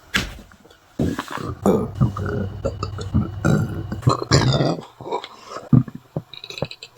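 A person belching: a run of long, rough burps from about a second in that lasts a few seconds, then a few short burps near the end.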